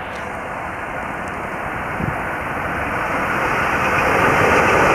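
ChS7 electric locomotive hauling a passenger train, approaching at speed, its rumble growing steadily louder as it nears. A light knock comes about two seconds in.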